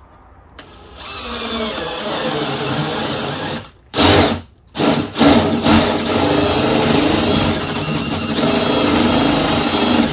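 DeWalt cordless drill boring a hole through a wooden RV cabinet panel. The drill starts about a second in, stops and restarts twice in quick succession around four to five seconds in, then runs steadily on.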